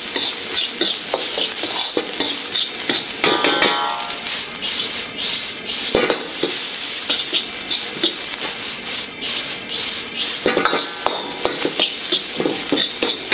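Metal wok ladle scraping and turning rice around a hot wok, quick repeated scrapes over a steady sizzle of rice frying in oil. Twice, about three seconds in and again near ten seconds, the metal gives a short ringing scrape.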